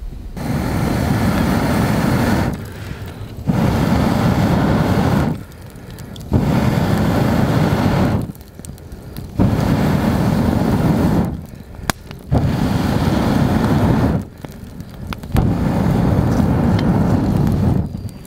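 Breath blown through a metal fire-blowing pipe into the embers of a kindling fire: six long rushing blows, each about two seconds, with short pauses for breath between them, fanning the smouldering wood into flame.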